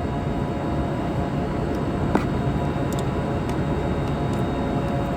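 Steady mechanical drone of background machinery, a low rushing noise carrying a few faint steady tones, with a single light click about two seconds in.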